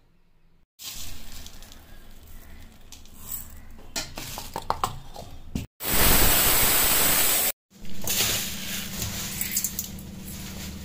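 Kitchen handling noise with a few clicks, then a Sheetal mixer grinder running loud for about two seconds, about six seconds in, cut off sharply. It is followed by ghee sizzling steadily in an iron kadai.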